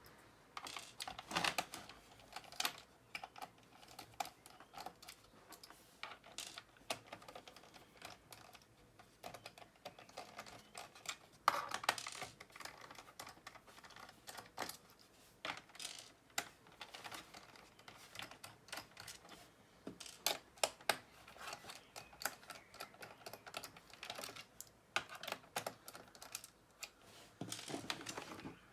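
Irregular small clicks and taps of a screwdriver working the screws out of a laptop's plastic bottom case, one screw after another.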